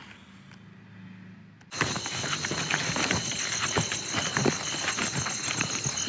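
Night insect chorus, a steady high-pitched chirring of crickets that comes in suddenly about two seconds in, with scattered light clicks of footsteps on a dirt forest trail.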